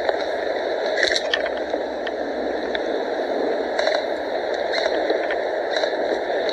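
Steady rushing noise with a few faint clicks scattered through it.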